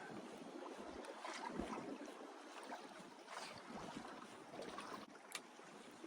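Sea and wind noise on a small fishing boat: water washing against the hull in soft swells every couple of seconds, with wind on the microphone. A single sharp click comes about five seconds in.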